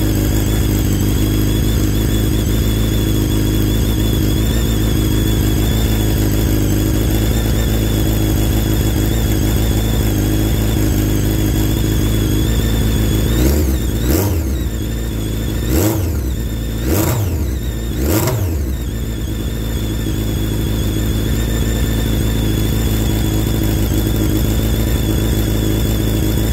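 2003 Suzuki Hayabusa's 1300 cc inline-four idling steadily while it warms up to temperature, with four quick throttle blips that rise and fall about halfway through.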